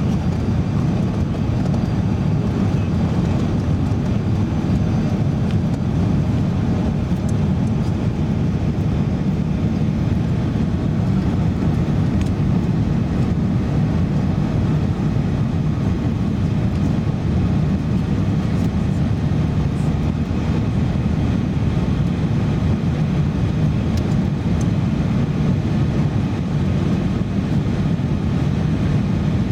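Airbus A380 cabin noise in flight: a steady low rumble of engines and rushing air heard through the fuselage.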